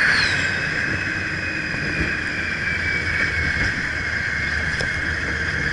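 Open-top Test Track ride vehicle running at speed on the outdoor high-speed loop: a steady rush of wind and running noise.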